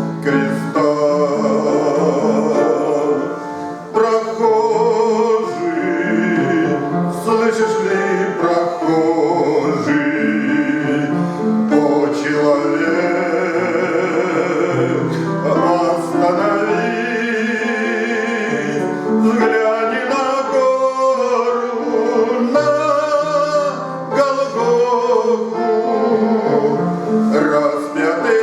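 A man singing a Christian hymn in Russian with instrumental accompaniment, the held notes sung with vibrato.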